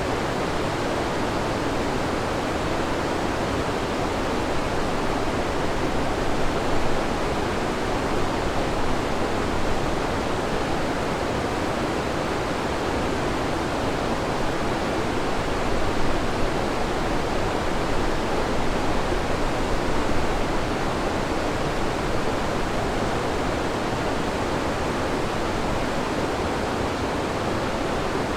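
Waterfall: the steady roar of a river's water pouring over rock, even and continuous with small swells in loudness.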